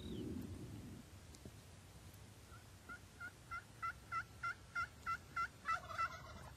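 A turkey yelping: a run of about a dozen short, evenly spaced yelps, about three a second, growing louder toward the end.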